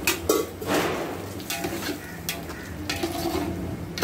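A metal ladle stirring vegetables into thick gravy in a large steel cooking pot, knocking against the pot several times at irregular intervals.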